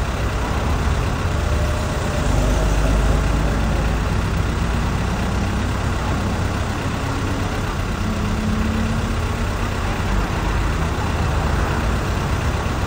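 Steady city street noise: a continuous low rumble of traffic and engines with an even hiss over it.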